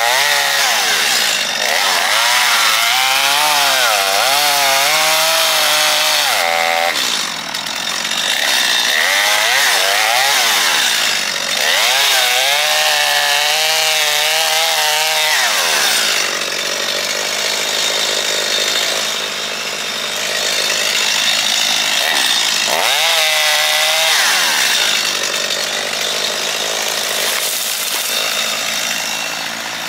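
John Deere 790 compact tractor running with its Bush Hog rotary cutter engaged while clearing brush. The engine note keeps sagging and recovering as the load comes and goes.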